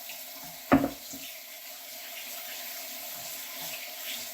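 Kitchen tap running water over baked beans and kidney beans in a colander, rinsing them. A single sharp knock sounds about a second in.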